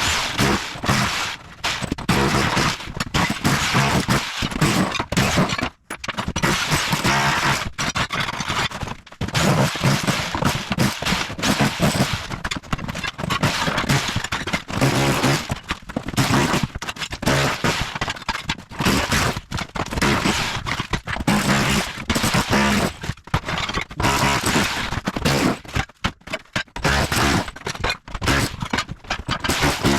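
Rotary hammer (Bosch Bulldog Max SDS Plus) in chisel mode with a tile chisel, rapidly hammering and breaking up floor tile and cement board, with tile cracking and scraping. It stops briefly a few times and starts again.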